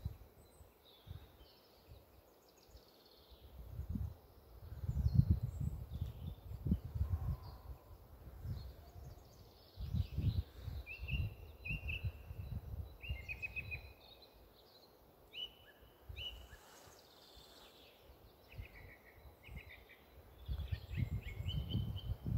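Several small songbirds chirping and singing short trills, busier in the second half, while gusts of wind rumble on the microphone, coming and going.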